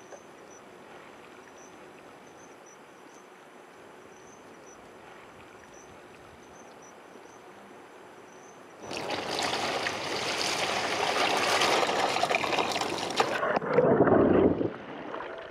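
Water pouring and splashing from a large plastic bottle, starting suddenly about nine seconds in after a faint steady hiss, and lasting about four seconds: a fish is being tipped back into the sea. Near the end the splash turns muffled and bubbling, as if heard underwater.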